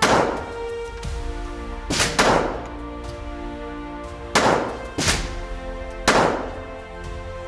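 Six handgun shots at an uneven pace, two close together about two seconds in, over background music.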